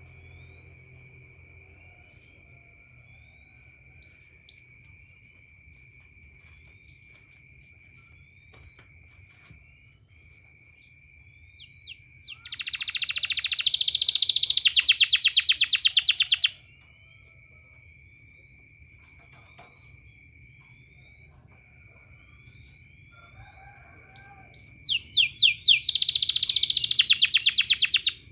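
Domestic canary singing: a few short high chirps, then two loud, very rapid rolling trills of repeated notes, one near the middle and one near the end. A steady high-pitched tone runs underneath.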